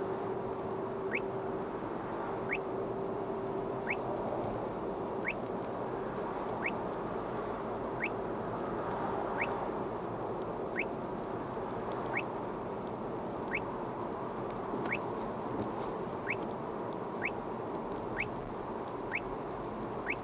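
Uniden R7 radar detector sounding its Ka-band alert: a short rising chirp about every second and a half, over steady road noise inside the car. The alert signals police Ka-band radar at 34.715 GHz.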